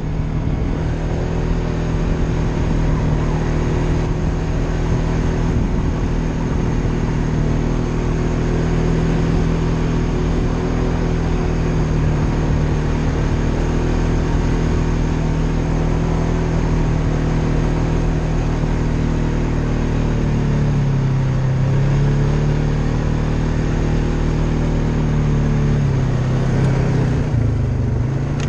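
Polaris Sportsman ATV engine running steadily while riding. Its pitch drops about two-thirds of the way through, then climbs back as it speeds up, and dips once more near the end.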